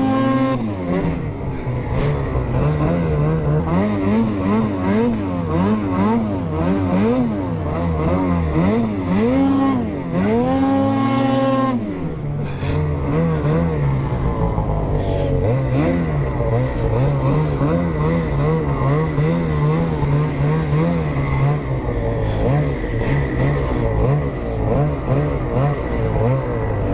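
Ski-Doo 850 two-stroke snowmobile engine under way, revving up and falling back again and again, with a longer, higher rev held about ten seconds in.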